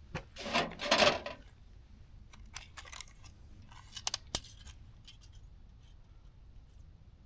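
Steel parts being handled: a heavy scrape or slide of metal on metal in the first second and a half, then several sharp metallic clicks and clinks.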